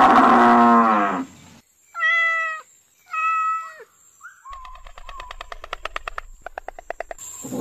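The end of a deep lowing call that falls in pitch as it stops, then a domestic tabby cat meowing twice, then a white stork clattering its bill in a rapid run of clicks lasting a few seconds.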